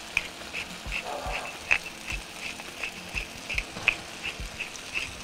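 Wooden pepper mill grinding black pepper, a steady run of short crunching clicks about two to three a second as the top is twisted.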